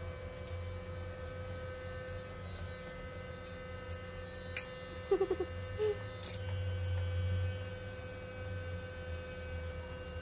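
Electric hair clippers buzzing steadily as they cut a child's short hair. About halfway through come a sharp click and a few short squeaky sounds.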